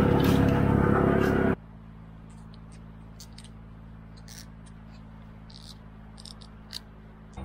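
A loud engine running steadily, cut off abruptly about a second and a half in. After that, a much quieter steady low hum with scattered faint high clicks.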